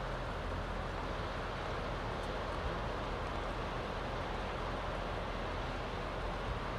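Steady rushing of whitewater river rapids, an even noise of water with no breaks.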